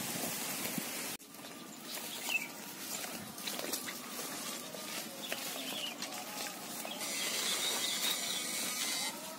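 Rustling of grass and leafy brush underfoot, with faint bird calls.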